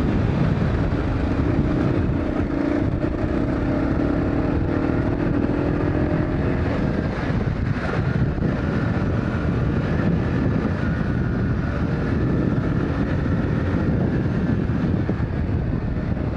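Dual-sport motorcycle engine running under way on a trail, its pitch shifting with the throttle.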